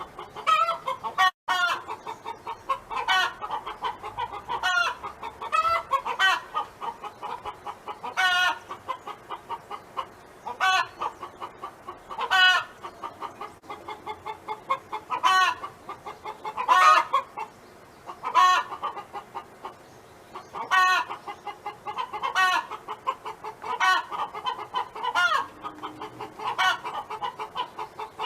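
Domestic hen clucking: a steady run of quick soft clucks, broken every couple of seconds by a louder, drawn-out call that rises and falls in pitch.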